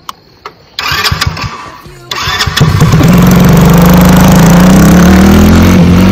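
A youth ATV's small engine comes in loud for about a second as the four-wheeler pulls away. Steady music then fades in and stays loud for the rest.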